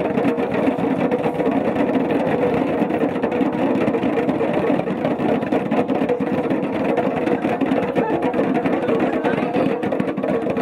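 A group of children beating djembe hand drums fast and continuously, a dense, even drumming that starts suddenly just before and keeps up throughout.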